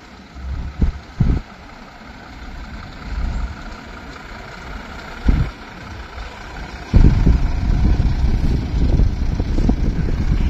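Volvo FM hook-loader skip lorry's diesel engine pulling round a roundabout and passing close by, much louder from about seven seconds in. A few short low thumps come in the first second and a half and again near five seconds.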